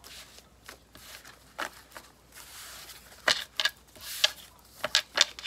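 Paper cards being gathered up and stacked on a wooden table: a scatter of light taps and clicks, with a brief sliding rustle about halfway through.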